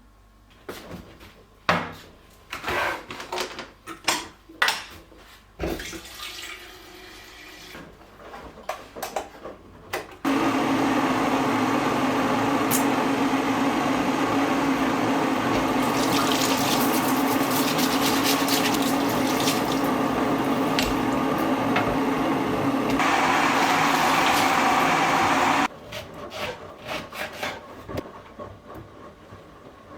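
A series of light clicks and knocks, then water running steadily from a tap for about fifteen seconds. Its tone shifts a couple of seconds before it is cut off abruptly.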